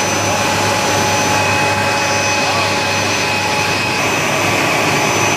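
Chiller plant-room machinery running: a steady loud drone with several thin, high, steady whine tones over it. One of the tones drops out about four seconds in.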